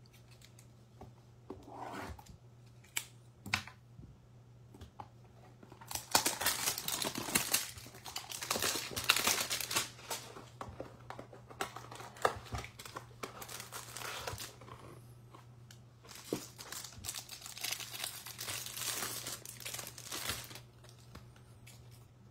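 Baseball-card hanger box and its wrapping being torn open and crinkled off the card stack: a few sharp clicks, then two long stretches of crackling and tearing.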